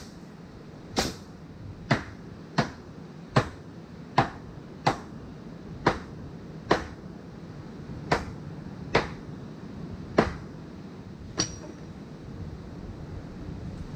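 Hammer blows driving nails into a wooden wall frame: about a dozen sharp strikes, roughly one a second, which stop about eleven seconds in, the last with a brief metallic ring.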